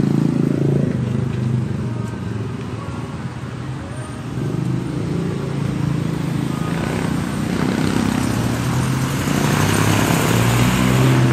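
Street traffic: vehicle engines running by, with the noise building over the last few seconds as a vehicle passes close.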